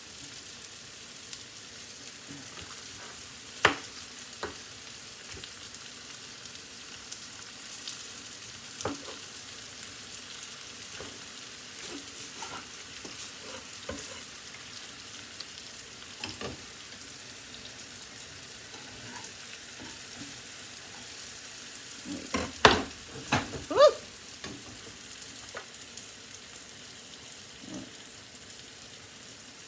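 Mushrooms frying in butter in a pan, a steady sizzle, with a spoon now and then knocking and scraping against the pan and a short burst of clatter about three-quarters of the way through.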